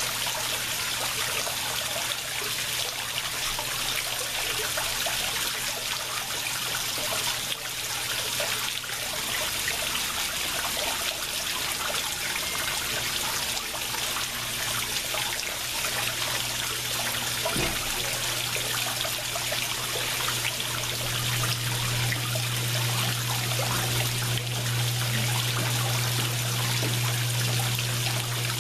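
Water steadily splashing and trickling into a koi pond, with a low steady hum underneath that grows louder about three quarters of the way through.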